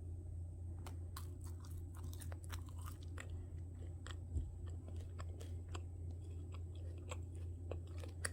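Crunchy food being chewed up close: a run of crisp crackles starting about a second in, over a steady low hum.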